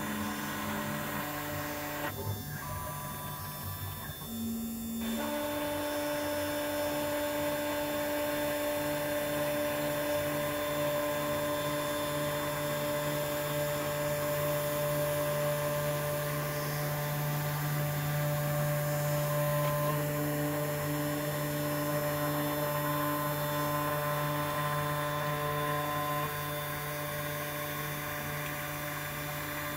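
Small CNC machine running while milling a printed circuit board: a steady motor whine made of several tones that shift in pitch at a few points as the machine moves, with a brief change in the sound between about two and five seconds in.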